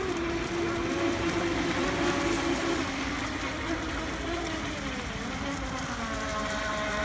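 Several Pro Boat Recoil radio-controlled racing boats running at speed, their brushless electric motors whining in several steady tones that slide in pitch as the boats pass and turn.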